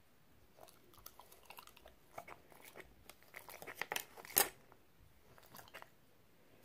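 French bulldog chewing a banana slice: a run of quick mouth clicks and smacks that grows busier and louder, peaking about four seconds in, then dies down to faint ticks.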